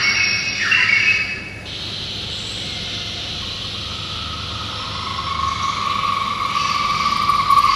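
Recorded great pied hornbill sounds played through a museum exhibit's loudspeaker: a few falling cries, then a steady rushing hiss, then from about halfway a long, held high note that grows louder.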